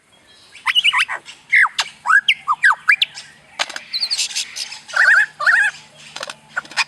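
A bird calling in a rapid run of short chirps and squawks, each sweeping up or down in pitch, with a few sharp clicks mixed in.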